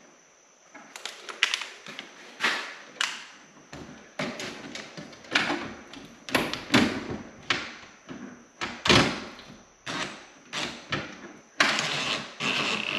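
Irregular knocks, taps and metallic clatter of tools and parts against a steel electrical breaker panel while the ground bus bar is being refitted. Near the end a cordless drill-driver runs briefly.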